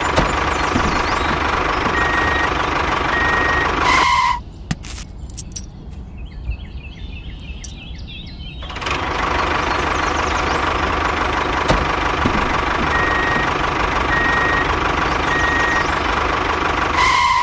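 Tractor engine sound running steadily, with runs of short high reversing beeps twice. It stops for about four seconds in the middle, where only small clicks are heard as the trolley is hitched on, then starts again.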